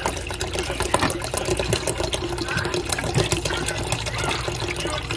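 Water pouring in a steady stream from an aluminium beer can into a slow cooker's metal pot, splashing into the beer already in it.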